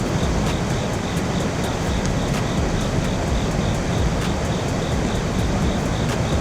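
Steady rush of fast river water from a waterfall and its current, with faint regular ticking above it.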